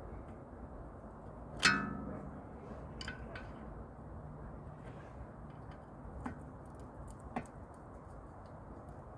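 A sharp metallic clank about two seconds in that rings briefly, followed by a few lighter clicks: hand tools and brake parts being handled during a front brake pad change.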